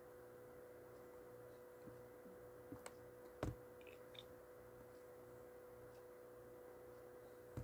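Near silence: a faint steady hum with a few soft clicks, the loudest about three and a half seconds in.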